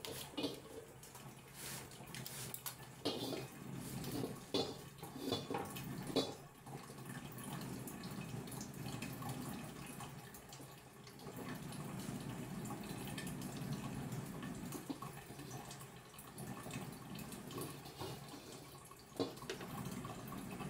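Gas burner flame rushing steadily under a carbon steel wok that is being heated to build up its patina, with scattered light clicks and knocks during the first few seconds.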